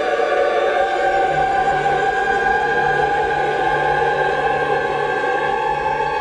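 Dramatic operatic music: voices singing long held notes over an orchestra.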